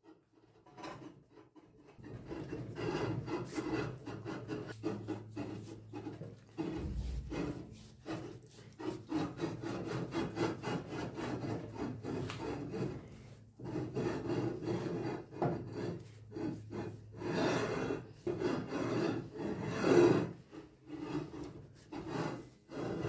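Steel drill spindle being twisted back and forth by hand inside its cast-iron bearing housing: an irregular metal-on-metal scraping rub in repeated strokes. There is a dull knock about seven seconds in, and the strongest scrape comes near the end.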